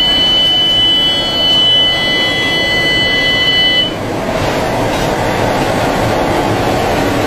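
Steady engine and wind rush inside a military transport aircraft's cabin, with the side jump door open in flight. A steady high-pitched tone sounds over it and cuts off suddenly about four seconds in.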